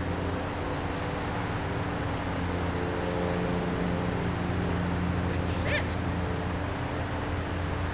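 Steady outdoor background of insects chirping over a low, even hum, with one brief high-pitched call about five and a half seconds in.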